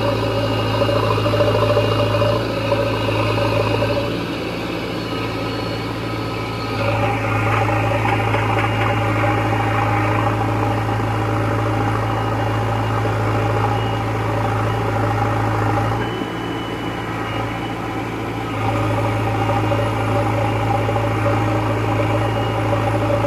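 Diesel engine of a JCB 3DX backhoe loader running steadily while it digs and loads soil. It eases off twice and then picks up again as the hydraulics take load.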